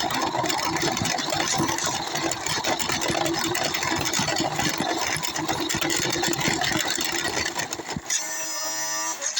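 An RC car's motor running and its chassis rattling with many quick clicks as it drives, picked up close by the camera mounted on it. About eight seconds in, the rattle gives way to a steady pitched sound.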